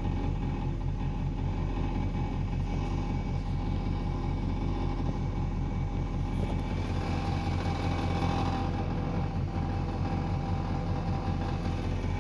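Car running in drive: a steady, fast-pulsing low rumble with a faint steady whine that grows a little louder around the middle. This is the odd noise the car makes when put in drive.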